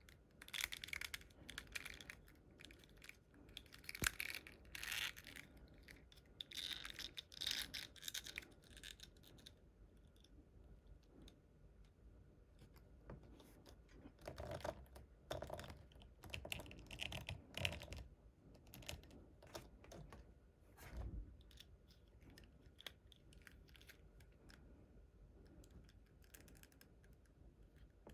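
Plastic packaging and a toy figure being handled during an unboxing: irregular bursts of crinkling and rustling with light clicks, a sharp knock about four seconds in, and duller bumps later on.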